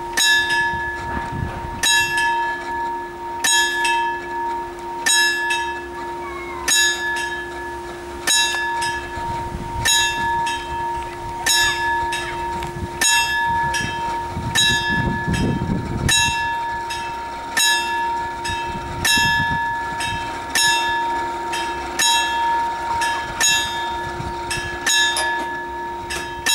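Level-crossing warning bell ringing in evenly spaced metallic strikes, at first about one every second and a half, then about twice as fast from about ten seconds in, over a steady high tone. It is the warning while the crossing's barriers come down for an approaching train.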